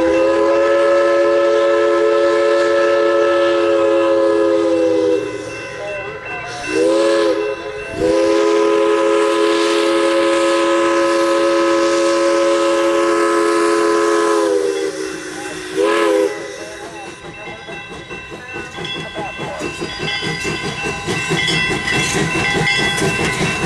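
Steam locomotive whistle sounding several notes at once for a grade crossing: a long blast, a short one, a second long blast, then a short one about 16 seconds in, each sagging in pitch as it cuts off. After that the locomotive's exhaust and running gear grow louder as the train comes up to the crossing, with the crossing signal bell ringing.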